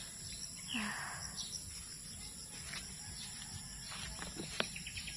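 Garden ambience: a steady high-pitched insect drone, with scattered bird chirps and ticks. A short vocal sound comes about a second in, and a quick run of chirps near the end.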